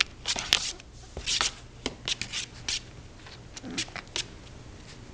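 Shetland sheepdog puppies, four weeks old, scrabbling and wrestling on a quilt: a quick run of short scratchy rustles that stops after about four seconds.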